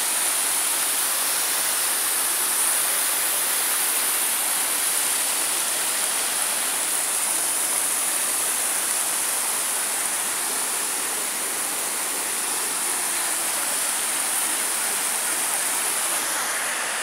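Mountain waterfall pouring over rocks into a pool: a steady, unbroken rush of falling water.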